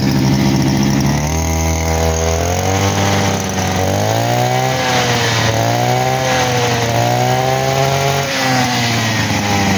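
Small engine of a three-wheeled push grass cutter, a Chinese-made engine of over 40 cc, idling for about a second and then revved up and down several times with the throttle. The revs fall back near the end.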